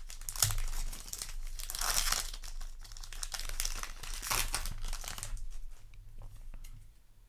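Foil booster pack of Yu-Gi-Oh! trading cards being torn open and crinkled. It goes down to faint clicks and rustles about five seconds in.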